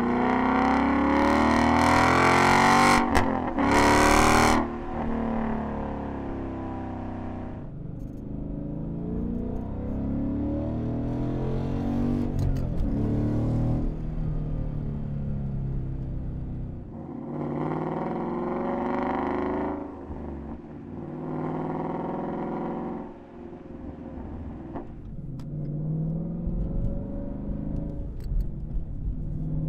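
Ford Mustang GT's 5.0 L Coyote V8 exhaust, fitted with an MBRP resonator-delete X-pipe and a Pypes axle-back, revving and accelerating on the move, its pitch rising and falling several times. It is loudest in the first four and a half seconds, heard from outside at the tailpipe, then from inside the cabin.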